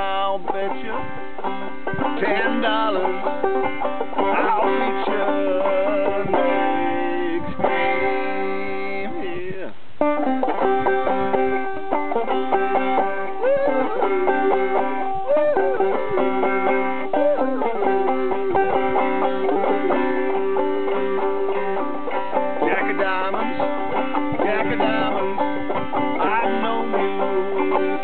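Banjo played solo, picking an old-time tune with a steady rhythm, with a brief drop in level about ten seconds in.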